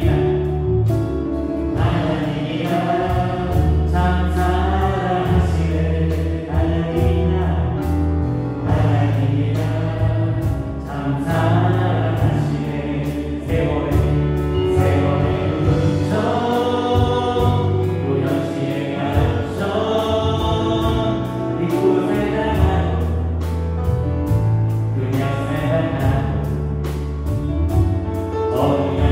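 Live worship band playing a gospel praise song: electric guitar, bass guitar, drum kit and keyboards, with voices singing the melody over a steady beat.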